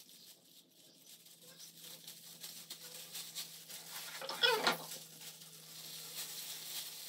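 A cat meows once, briefly, about four and a half seconds in, over a low steady hum.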